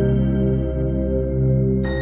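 Ambient background music: slow, sustained layered pads and bell-like tones.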